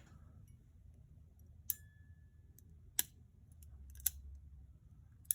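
H&R Model 676 revolver's action clicking as the trigger is pulled with the cylinder in: four sharp metallic clicks roughly a second apart, two with a brief ring. It is a dry-fire test of the freshly reassembled action.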